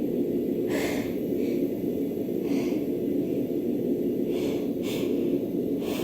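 A woman sniffing and breathing through her nose between dust sneezes: a few short sniffs a second or two apart, over a steady low hum.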